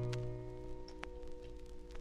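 Final chord of a bluegrass string band (guitar, banjo, mandolin, bass and fiddle) ringing out and dying away, with the low bass note stopping a little before the end. A few faint clicks sound over the fading tones.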